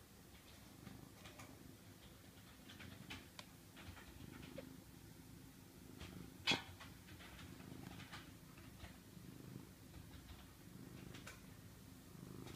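Domestic cat purring steadily, a soft low rumble. Faint scattered ticks run through it, and one sharp click comes about halfway through.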